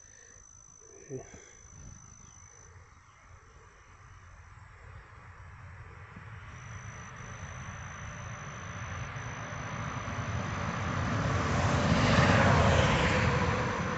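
Engine noise of a passing vehicle or aircraft, swelling slowly over about eight seconds to a peak near the end and then starting to fade, over a steady high insect trill.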